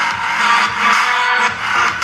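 Music played loud through an unenclosed speaker driver powered by a TPA3110D2 class-D amplifier board (2×15 W) during a sound test, with little deep bass.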